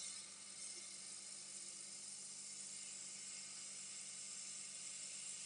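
Hot air rework gun blowing a faint, steady hiss of hot air onto a laptop motherboard, heating the solder to seat a replacement MOSFET. The hiss cuts off near the end.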